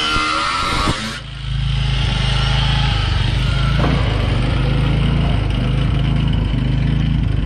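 Background music cuts off about a second in, leaving a steady low mechanical drone with a fast, even pulse: an engine or motor running at a constant idle.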